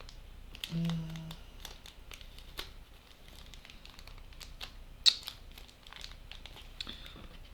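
Small plastic and metal kit parts handled on a table: scattered light clicks and crinkling, with one sharp click about five seconds in.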